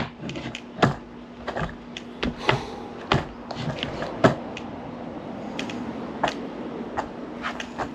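Skateboard on a miniramp: a string of irregular knocks and clacks from the board striking the ramp and coping, over the steady noise of wheels rolling.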